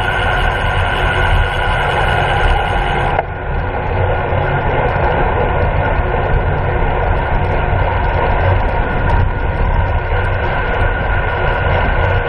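Steady heavy wind rush and tyre-on-asphalt noise from a road bicycle moving at about 25–29 mph in a racing pack. About three seconds in, a thin high hiss cuts off abruptly and the rush carries on.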